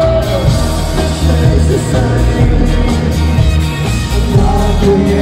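Loud live band music: a heavy drum and bass groove with a held, bending melodic line over the top.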